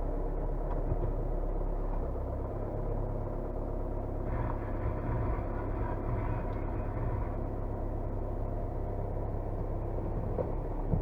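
Kia Carens II diesel car running steadily on a test drive with its new outer CV joint: a low engine and road rumble, with a broader rush of noise from about four seconds in that falls away again a few seconds later.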